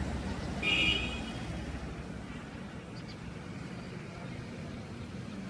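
Street background with a low steady rumble, and one short, high vehicle horn beep about a second in.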